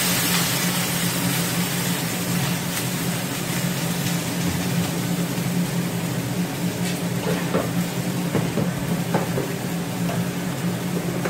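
Steady hum of a kitchen fan at the stove, with the wok of celery leaves and chilli simmering quietly on low heat after a splash of water. A few light clicks and taps come in the second half as a plastic container is handled.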